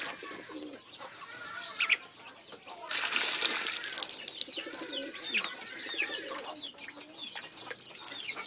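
Native chickens making soft, short low calls, with a few higher chirps, over rustling noise that grows louder about three seconds in.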